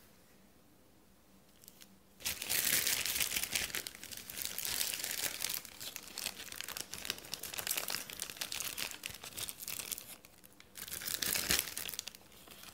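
Clear plastic bag crinkling as it is handled and opened out by hand, starting about two seconds in, with a short pause near the end.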